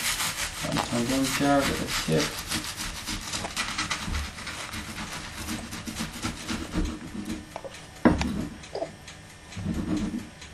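Kitchen knife sawing back and forth through the crust of toasted sandwich bread on a plastic cutting board, trimming off the crusts: a run of quick scraping strokes, then a single sharp knock about eight seconds in.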